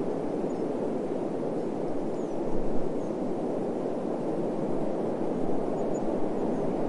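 Steady wind ambience: a low, even rushing noise with a deeper rumble underneath, swelling slightly about two and a half seconds in.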